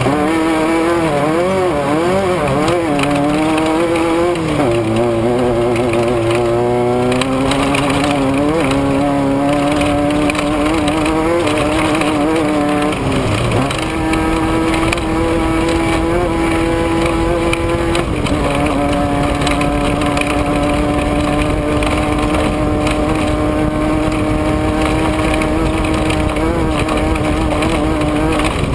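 Off-road race vehicle's engine running hard. Its pitch rises and falls quickly for the first few seconds, then holds fairly steady with a few shifts, dipping briefly about halfway through.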